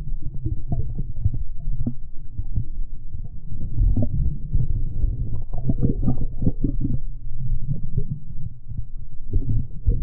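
Stream water heard with the camera held underwater: a muffled, continuous low rumble of flowing water with many scattered knocks and clicks.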